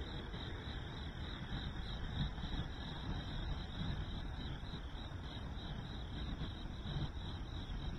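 Chorus of crickets chirping, a steady high pulsing trill, over a steady low rumble.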